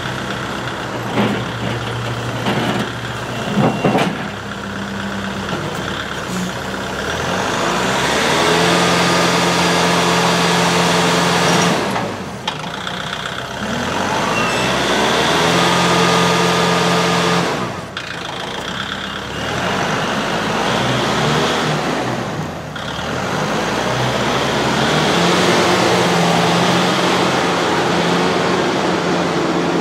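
Kubota four-cylinder turbo diesel engine of a 2016 M62 tractor loader backhoe running, the throttle brought up three times and held at high revs for several seconds before falling back to a lower speed. A few sharp knocks in the first few seconds while it runs slow.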